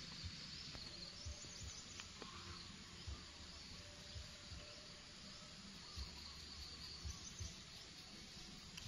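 Quiet outdoor ambience: a steady, high insect drone with faint bird calls, and scattered soft low thumps.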